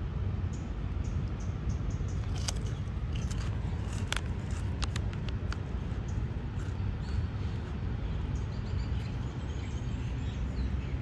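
Steady low rumble of background noise, with a few faint clicks scattered through it.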